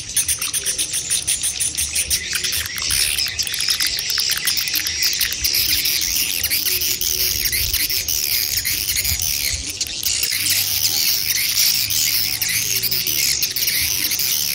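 Swiftlets twittering in a dense chorus of short, high chirps, with rapid clicking through the first few seconds. These are the 'mother and chick' swiftlet calls used as a lure sound to draw swiftlets to a nest house.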